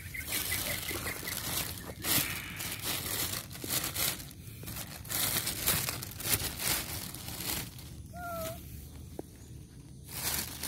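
Thin plastic bag crinkling and rustling in irregular bursts as it is handled and opened, with one short cat mew about eight seconds in.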